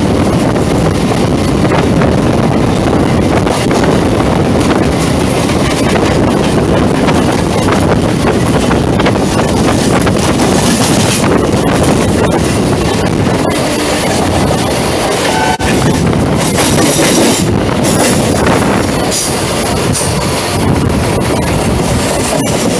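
Steady running noise of a suburban local train heard from an open door or window as it moves along the track: wheels clattering on the rails with air rushing past, and a few brief high-pitched bursts in the second half.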